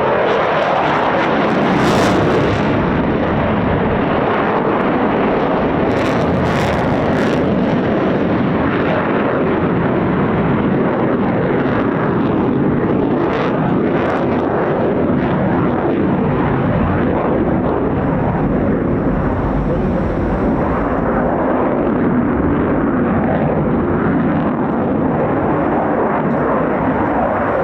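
Eurofighter Typhoon's twin jet engines, a loud, steady roar of jet noise throughout, with a few sharp crackles about two seconds in and again around six to seven seconds.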